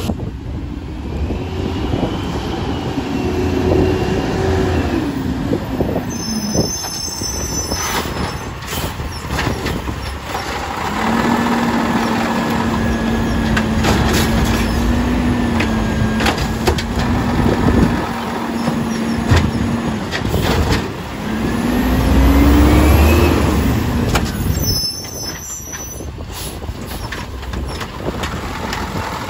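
Automated side-loader garbage truck at work: the diesel engine runs throughout, and a steady hydraulic whine holds for several seconds midway as the arm lifts and empties a recycling cart, followed by a short rising whine. Knocks from the cart and arm, and brief hisses of brake air as the truck stops between carts.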